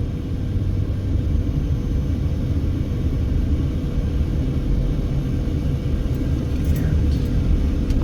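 Steady low rumble of a car driving at speed, tyre and engine noise heard from inside the cabin, with a faint steady hum.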